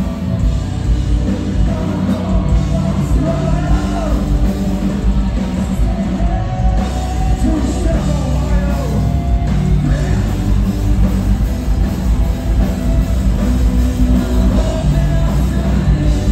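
Metalcore band playing live through a club PA: distorted guitars, drums and keyboards at full volume, with a sung and yelled vocal line through the middle.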